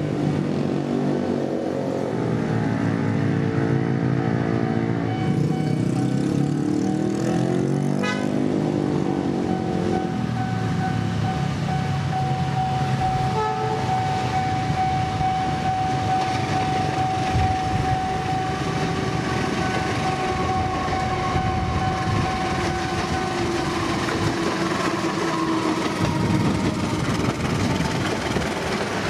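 CC 203 (GE U20C) diesel-electric locomotive hauling a passenger train as it approaches and passes close by. Its engine's note shifts and bends in pitch through the first ten seconds or so, then gives way to a steady rush of wheels and carriages on the rails. A steady high tone runs through the first two-thirds.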